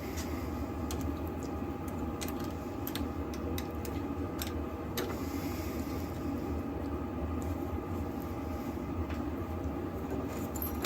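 A steady low hum with a few light clicks as keys are handled and lined up in the vises of a key cutting machine.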